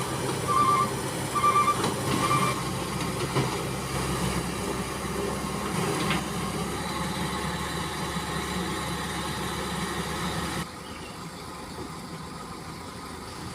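Diesel engine of a long-reach excavator running under load as it climbs onto a low-bed trailer. In the first couple of seconds an alarm beeps steadily alongside it. The engine sound drops off suddenly about three-quarters of the way through.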